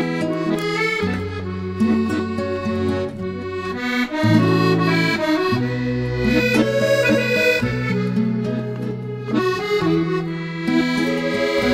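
Instrumental break in a habanera: an accordion plays the tune over held chords and changing bass notes, with no singing.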